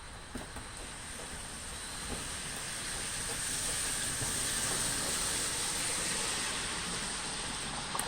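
Rain falling with a steady rushing hiss that swells louder about three seconds in and eases slightly near the end.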